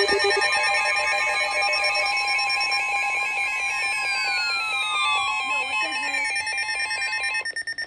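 Layered Emergency Alert System tones on NOAA Weather Radio: a steady warning alarm tone under stuttering SAME header data bursts, with several tones sliding down in pitch in the second half. It all cuts off shortly before the end.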